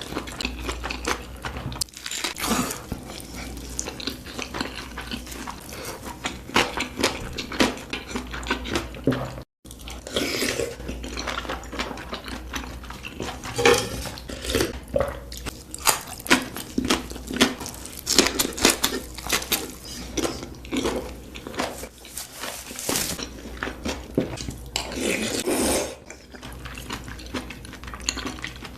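Close-miked eating: chewing and biting of food with wet smacks and crunches, mixed with light clicks of cutlery and dishes. The sound drops out for an instant about nine seconds in.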